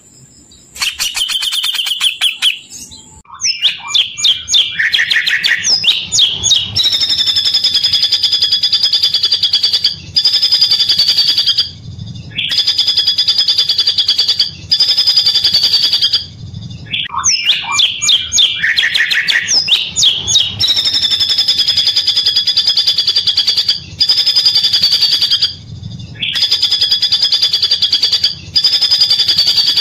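Songbird song: rapid chattering trills, then long runs of fast, buzzy repeated notes at two pitches. These runs go for a few seconds at a time and are broken by short pauses.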